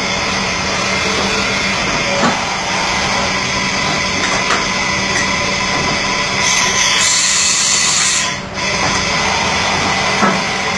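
Mitsui Seiki VT-3A CNC machining center's BT-40 spindle running steadily at high speed, up to 12,000 rpm, with a steady hum and whine. About six and a half seconds in a loud hiss starts and cuts off suddenly two seconds later.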